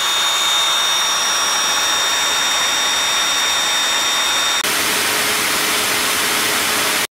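Modified belt sander running at reduced speed with a rope held against its sanding belt, the belt wearing through the rope's sheath, with a steady high whine. About four and a half seconds in it changes to an electric drill spinning an abrasive disc against a rope, which cuts off abruptly near the end.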